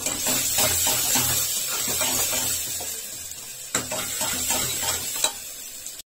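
Chopped red onions sizzling in hot oil in an aluminium pressure cooker, stirred with a steel ladle that scrapes the pot, with two sharp knocks of the ladle in the second half. The sound cuts off abruptly just before the end.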